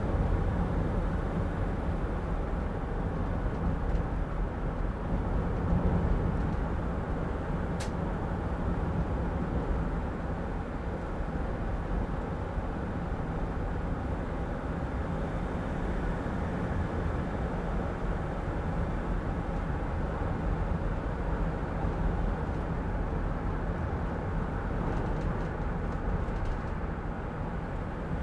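Inside the cab of a Mercedes Sprinter van on the move: a steady low rumble of engine and road noise, with strong wind against the high-top body. A single sharp click comes about eight seconds in.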